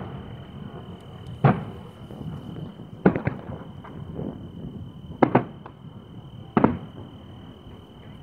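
Distant aerial fireworks, the booms of shells bursting in the sky: about six booms, some in quick pairs, over a low background rumble.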